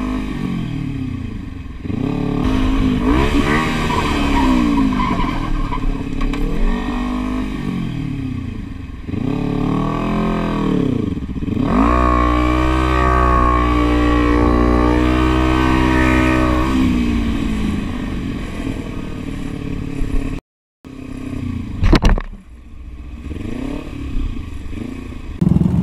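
Sport motorcycle engine, heard on board, revving up and falling back again and again as the rider accelerates and shifts, with a stretch held at high revs in the middle. The sound drops out briefly and then comes back with a sudden loud knock.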